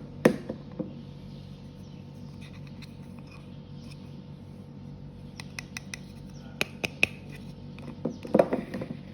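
Scattered sharp clicks and taps of hard plastic being handled: a loud click just after the start, a run of clicks in the second half, and a short clatter near the end.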